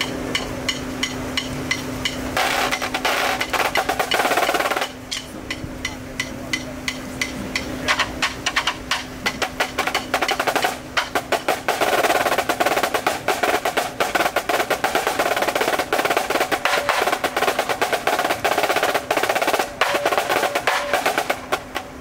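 Drum corps snare line playing together in warm-up: a passage of tight rolls about two seconds in, a stretch of spaced single strokes, then from about eleven seconds a long passage of dense rolls and accented strokes that stops just before the end.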